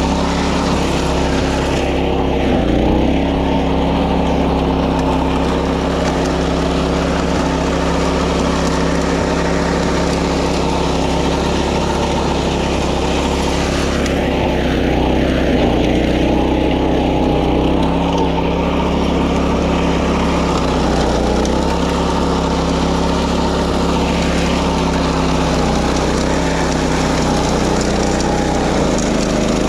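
Small gasoline engine of a walk-behind wing mower running steadily, its pitch dipping and rising slightly a few times.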